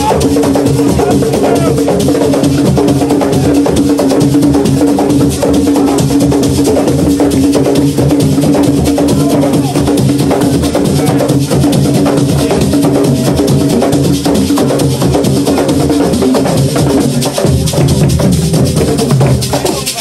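Loud live assiko music: dense, driving percussion, with a held pitched tone over it that fades near the end.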